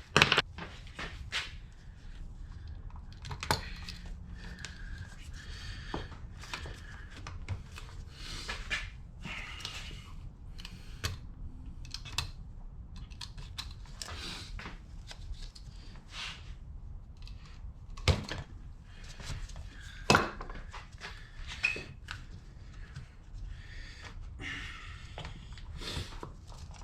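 Hand tools and metal steering-rack parts being worked on a bench: irregular clicks, clinks and scraping, with two sharp knocks about 18 and 20 seconds in.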